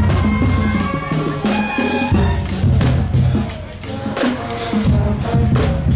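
Music with a drum-kit beat and a heavy bass line.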